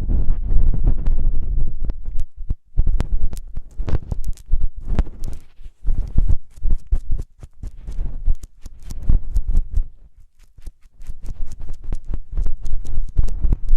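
ASMR ear sounds: something rubbing and pressing on microphone ears in both channels, giving a muffled low rumble dense with crackling clicks, broken by two short pauses.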